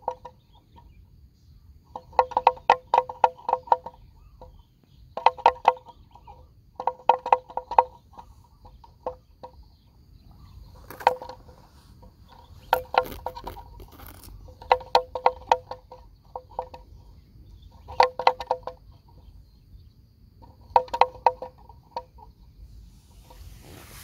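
Water buffalo grazing: short bursts of rapid crunching rips as it tears off grass, a burst every two to three seconds.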